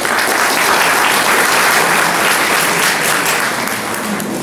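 Audience applauding, starting at once and tapering off near the end.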